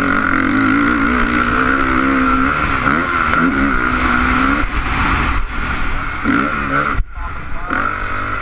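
Honda CRF450 single-cylinder four-stroke motocross engine under hard riding, the pitch rising and falling as the throttle is worked through gears and corners, heard from a helmet-mounted camera with rushing wind. The engine note briefly cuts away about seven seconds in, then picks up again.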